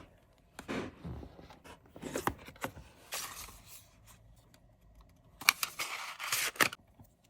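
Hands handling NeeDoh squishy toys: a run of irregular rustles and scrapes, busiest and loudest about five to six and a half seconds in.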